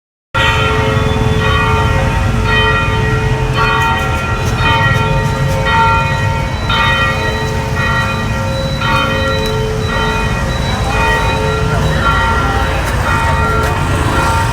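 Church bell ringing, struck about once a second, each stroke ringing on into the next, over a steady low rumble.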